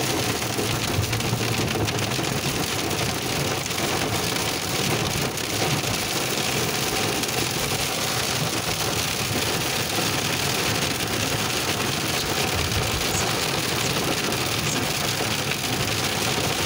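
Heavy rain pelting a moving car, heard from inside the cabin: a steady, dense hiss with the car's running and road noise underneath.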